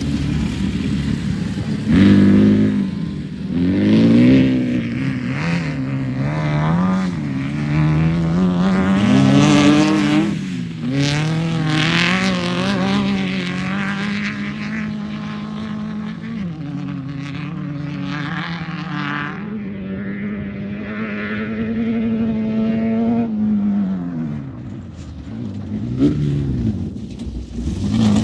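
Air-cooled 1600 cc VW engine of a Class 1600 desert race buggy running hard, its pitch climbing and dropping with throttle and gear changes, holding steady for a long stretch in the middle, then falling off near the end.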